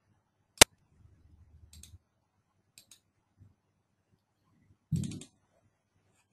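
Computer mouse clicks: one sharp click about half a second in, a few faint clicks over the next few seconds, and a duller, louder knock about five seconds in.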